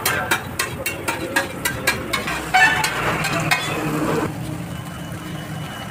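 Steel spatula tapping and scraping on a large flat iron griddle as egg and vegetables are chopped and stirred, with frying sizzle underneath. The taps come about five a second for the first two seconds, there is a second flurry in the middle, and then it settles to a quieter steady sizzle.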